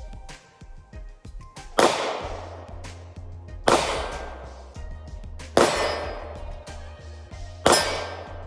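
Four gunshots, evenly spaced about two seconds apart, each sharp crack trailing off in a long ringing decay, over background music with a steady bass line.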